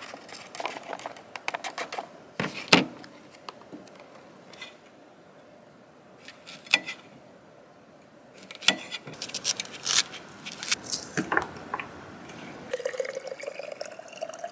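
Scattered clicks and knocks of a knife and food being handled on a plastic plate. Near the end, water runs from an Igloo water cooler's spigot into a cup, rising in pitch as the cup fills.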